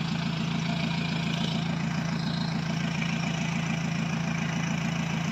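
Off-road Jeep's engine running steadily at low revs, an even low rumble with no revving.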